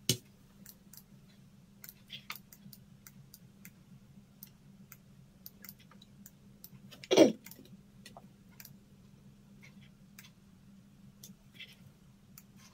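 Scattered soft clicks from a laptop being worked with mouse and keys, over a faint steady low hum. There is one brief louder sound about seven seconds in.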